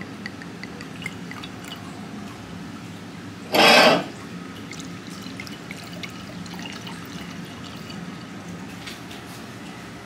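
Red wine poured from a bottle into a wine glass, trickling and dripping over a steady low hum, with a brief loud rush about three and a half seconds in.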